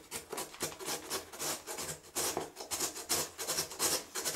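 Carrot being grated on a Korean-carrot julienne grater: quick repeated rasping strokes as the carrot is pushed over the blades.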